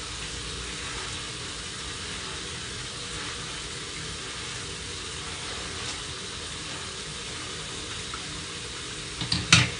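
Steady hiss of running water, with one sharp knock near the end.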